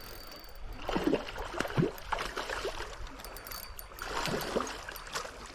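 Stream water running steadily, with a few splashes and gurgles about a second in and again around four seconds, as a freshly netted trout thrashes in the water.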